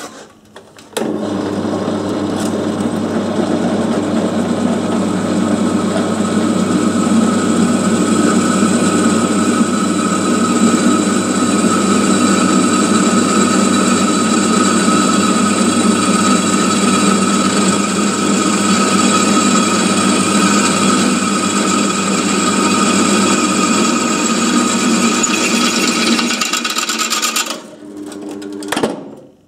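Bench drill press running under load, its twist bit cutting into a steel handsaw blade at a spot heated with a MIG spot weld: a steady motor hum with a scraping cut that starts about a second in and winds down near the end. The bit does not get through easily, because the spot weld has not softened the hard saw steel as much as hoped.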